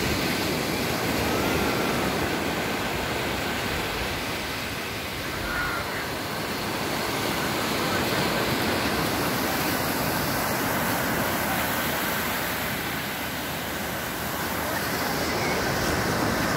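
Atlantic Ocean surf: small waves breaking and washing up over the sand in a steady rush that swells and eases.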